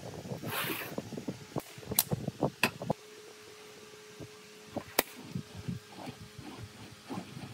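Irregular light knocks and a few sharp clicks of handling work, with a faint steady hum for about two seconds in the middle.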